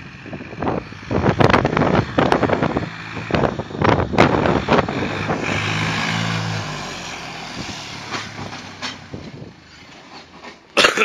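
A farm tractor's diesel engine works hard as the tractor slides round in the snow. There are uneven loud bursts in the first few seconds. The engine drone is loudest about six seconds in, as the tractor passes close, then fades as it drives away. A short loud burst comes just before the end.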